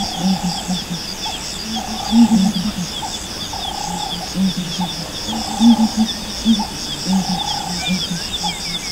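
A chorus of wild animal calls. Short low calls come in clusters, a higher drawn-out call repeats about every second and a half, and a fast, even high pulsing runs underneath.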